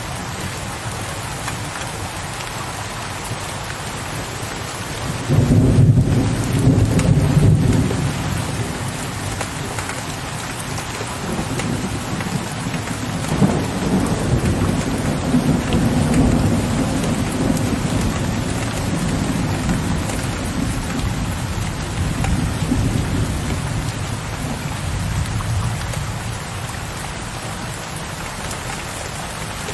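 Steady rain with rolling thunder: a loud low rumble breaks in about five seconds in, and a second, longer rumble builds from about eleven seconds in and fades away.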